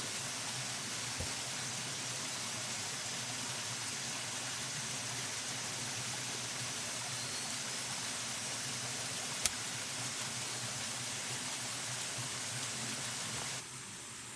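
A steady, even hiss with a couple of faint clicks; it drops off abruptly near the end.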